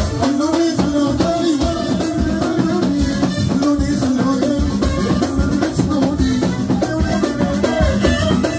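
Live shaabi band music: a bowed violin carries a gliding melody over a drum kit and hand percussion keeping a steady, busy beat.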